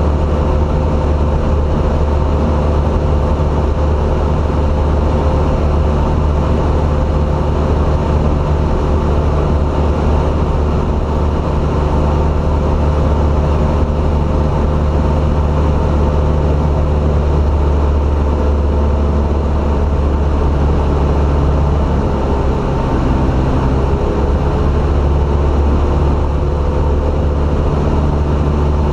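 Piston engine and propeller of a single-engine light plane in cruise flight, heard from inside the cabin as a loud, steady drone with wind rush. The pitch shifts slightly about two-thirds of the way through.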